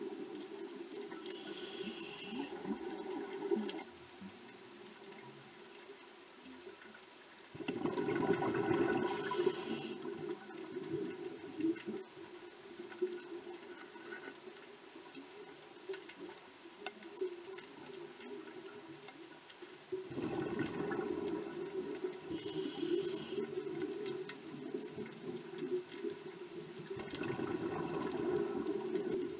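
Scuba breathing heard underwater through a regulator: short hissing inhalations and longer gurgling rushes of exhaled bubbles, loudest about 8, 20 and 27 seconds in, over a steady low bubbling.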